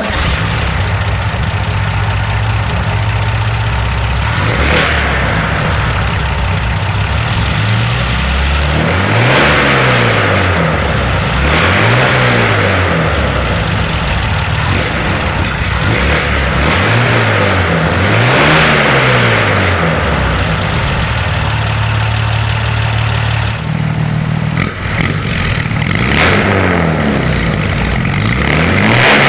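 A 1955 Chevrolet 3100 pickup's rebuilt 235 cubic-inch inline six idling steadily. The throttle is blipped several times, so the revs rise and fall back, in pairs about ten and seventeen seconds in and again near the end.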